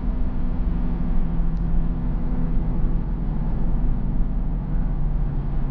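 Car driving: a steady low rumble of engine and road noise with a constant low drone.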